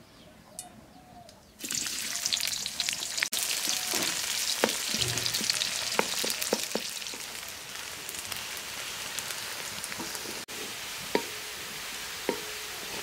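Sliced onions hitting hot oil in an aluminium karahi and frying with a loud sizzle that starts suddenly about a second and a half in. A wooden spatula knocks and scrapes against the pan a few times as the onions are stirred.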